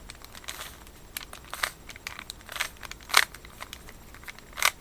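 Plastic twisty puzzles (Rubik's-type cubes) being handled and turned, giving irregular clicks and clacks with some rustling.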